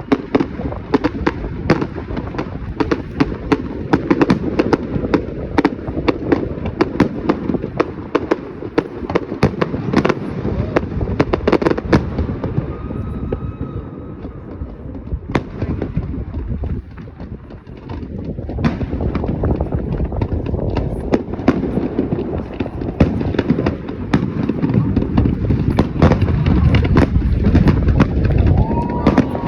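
Fireworks going off in quick succession: a dense run of sharp cracks and bangs over a continuous low rumble of booming shells. The barrage thins briefly about two-thirds of the way through, then builds again, with a short whistle near the end.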